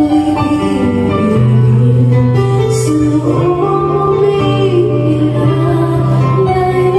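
Live band music: a female lead vocal over keyboard, guitar and percussion, with steady sustained bass notes underneath.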